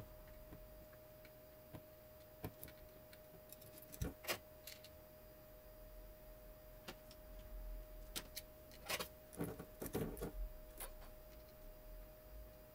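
Light, irregular clicks and taps of metal tweezers and a soldering-iron tip against a circuit board and small surface-mount parts during hand soldering, busiest about four seconds in and again between eight and eleven seconds.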